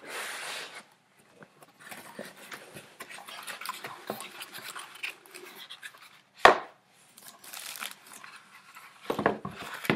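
Cardboard packing inserts rubbing and scraping against the box as a plastic-wrapped fish finder unit is pulled out, with irregular rustling and plastic crinkling. There is a sharp knock about six and a half seconds in and a burst of louder rustling near the end.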